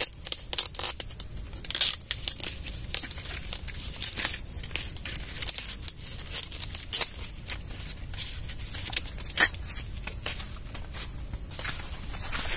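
Sweet corn leaves and husks rustling and tearing as baby corn ears are pulled from the stalk by hand, with irregular crackles and a few sharper snaps.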